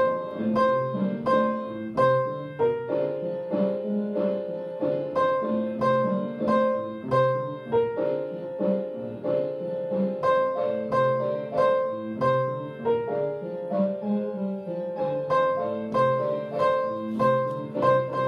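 Piano music: a steady run of struck notes and chords, several a second, with no voice.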